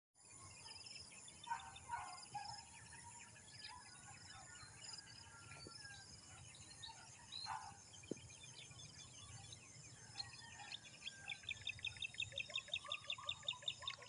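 Outdoor rural ambience of scattered bird calls over a steady high-pitched insect buzz. Near the end one bird gives a fast, regular run of repeated chirps, about four or five a second.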